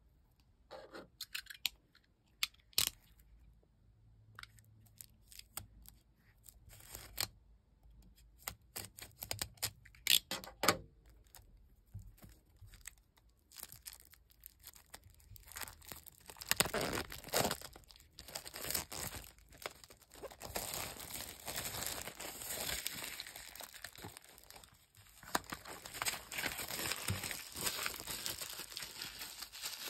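Clear plastic shrink wrap being picked at, torn and crinkled off a stack of cork trivets. Scattered small clicks and rustles come first, then about halfway through a longer stretch of steady crinkling and tearing.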